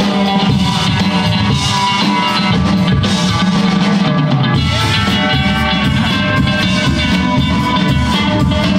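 Live dub-funk band playing through a PA: electric guitar, electric bass, drum kit and hand drums over a steady groove. The deepest bass thins out for a couple of seconds and comes back in strongly about halfway through.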